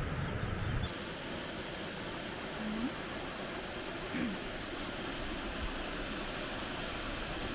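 Steady outdoor background hiss, with a low rumble of wind on the microphone in the first second that cuts off suddenly. Two faint, brief rising calls come about three and four seconds in.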